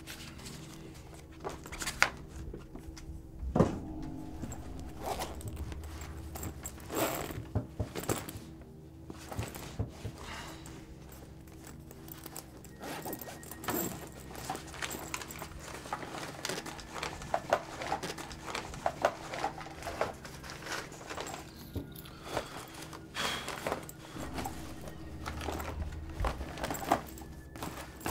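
A low, steady music drone under scattered knocks, clicks and rustles as a backpack and things on a table are handled.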